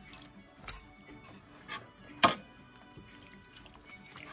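Water running and splashing at a kitchen sink, with a few sharp knocks, the loudest about two seconds in.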